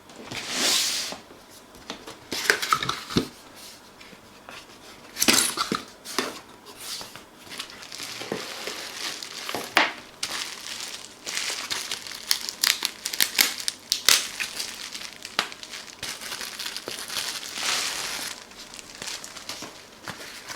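Speedlight flash box being unpacked by hand: packaging crinkling and rustling in repeated short bursts, with scattered clicks and knocks.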